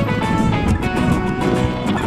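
Background music: sustained melodic notes over a steady percussive beat.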